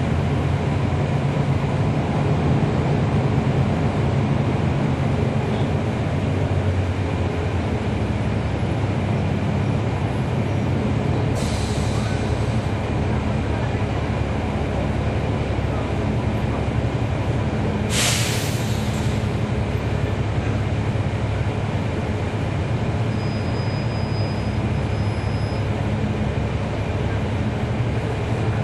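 Inside a NABI 416.15 transit bus, its Cummins ISL9 inline-six diesel engine runs steadily under road noise. Two short hisses of air come from the bus's air system, the second one louder, about two-thirds of the way through.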